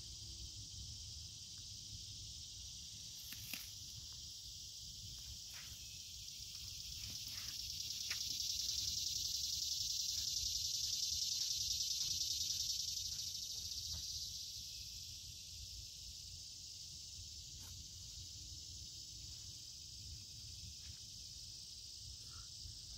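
Steady high-pitched insect chorus that swells louder for several seconds in the middle, with faint scattered clicks.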